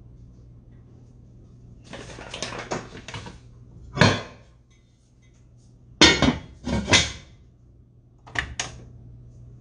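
Kitchen handling sounds: a rustle lasting a second or so, then a few sharp knocks and clatters of cookware, with a pot lid handled near the end.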